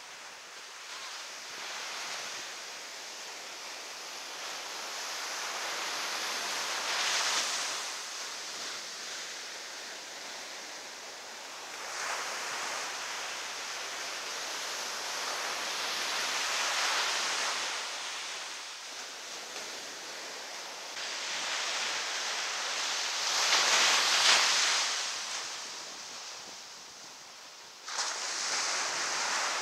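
Ocean surf breaking and washing up a sandy beach: a steady rush of wave noise that swells and falls every few seconds as each wave comes in. It jumps suddenly louder near the end.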